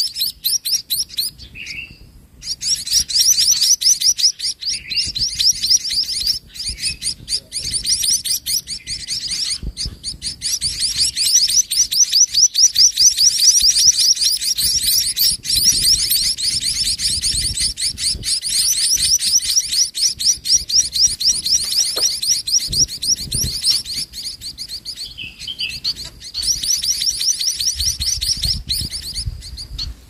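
Munia nestlings begging in the nest as a parent feeds them: high, very rapid chirps in long unbroken runs of several seconds, with short breaks between runs.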